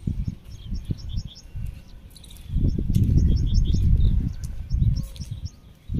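Small birds chirping in quick, repeated short high notes, over a low rumble of wind buffeting the microphone that is heaviest from about halfway through until near the end.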